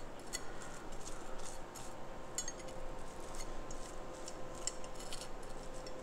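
A knife scraping as it spreads cream cheese across a slice of toasted keto bread: faint, scattered light scrapes and clicks.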